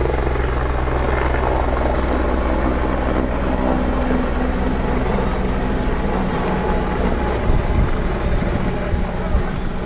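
Helicopter running close by: a steady low drone of rotor and turbine. About two-thirds of the way through, uneven gusts start buffeting the microphone.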